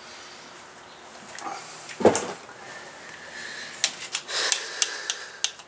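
Hand-working noises from pushing wire bullet connectors together: light scattered clicks and rustles, one thump about two seconds in, and a short breathy hiss a little after four seconds.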